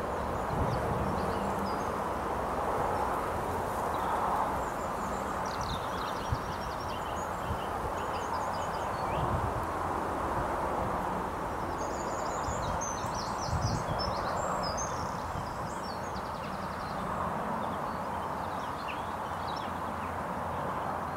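Outdoor ambience: a steady rushing background noise with irregular low rumbles, and small birds chirping and trilling high above it, most of all a few seconds in and again around the middle.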